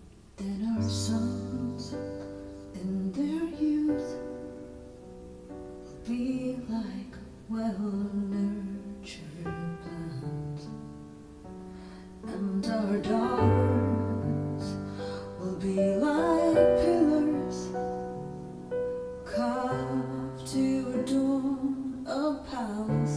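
A woman singing a worship song, phrase by phrase, over sustained piano chords played on an electronic keyboard.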